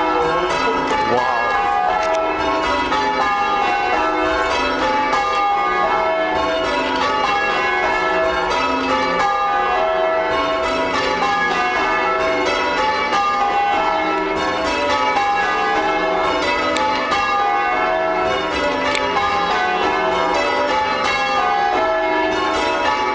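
Church bells being change-rung: tower bells struck one after another in a continuous stream, the rows falling in pitch in repeated runs.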